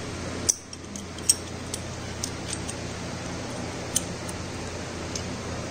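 A few light metallic clinks and ticks of tools and engine parts being handled on a bare engine block, the sharpest about half a second in, again just after a second, and near four seconds in, over a steady low hum.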